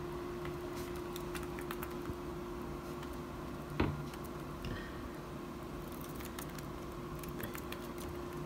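Scattered light clicks and taps from budgerigars moving about their cage, their beaks and claws on bars and perches. One sharper knock comes about four seconds in, over a steady low hum.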